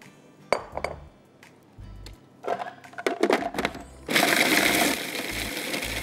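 A few clinks and knocks as the food processor bowl and lid are handled. About four seconds in, the electric food processor starts, grinding fried whole-wheat dough pieces and crushed edible gum; it is loudest for the first second, then runs steadily.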